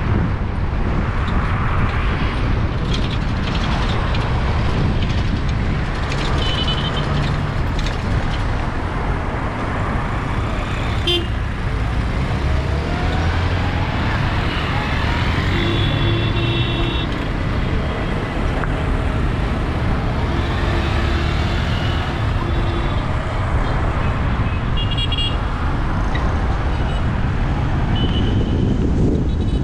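Town traffic heard from a moving car: a steady engine and road rumble, with vehicle horns tooting several times. The longest honk comes about halfway through and lasts a second or two.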